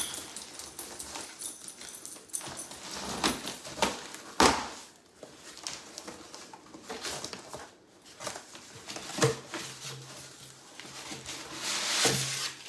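Cardboard box and packing material being handled: rustling and crinkling with a few sharp knocks, the loudest about four seconds in, as glass vases are unpacked.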